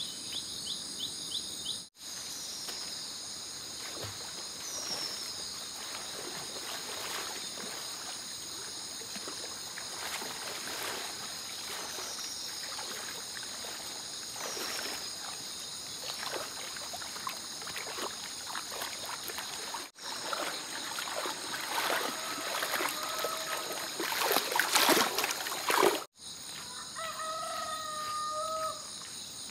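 Steady high insect chorus in the background, with irregular rustling and crackling that grows loudest about 25 seconds in. Near the end a rooster crows once.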